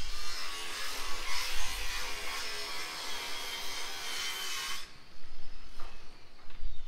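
Power drill running on the roof for about five seconds with a high whine, then stopping abruptly, while the roof sheets are being drilled and screwed down. Low wind rumble on the microphone underneath.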